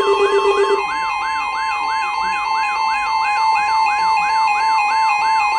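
Emergency Alert System attention signal before a tornado warning: steady electronic alert tones near 1 kHz, with a siren-like tone falling in pitch about three to four times a second layered over them. A lower tone drops out about a second in.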